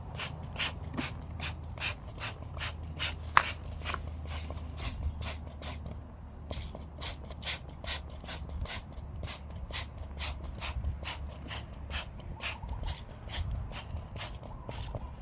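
Paintbrush scrubbing wet circuit boards of a Revox PR99 MKI tape recorder in quick repeated strokes, about three a second, with a short pause partway through and one sharper tick a little over three seconds in.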